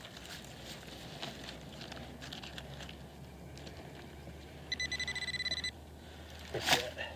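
Hand digger scraping and loosening soil in a small hole, with faint scrapes and clicks. About two-thirds in, a Whites Bullseye TRX pinpointer gives a rapid pulsing high beep for about a second as it picks up the target in the dirt. A brief louder noise follows near the end.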